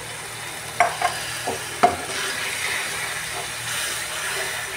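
Water poured into hot onion-tomato masala frying in a pan, sizzling while a steel ladle stirs it. A few sharp metal knocks against the pan come about a second in.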